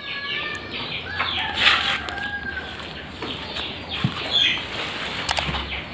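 Domestic chickens calling and clucking, with a rooster crowing, and a brief rustle about a second and a half in.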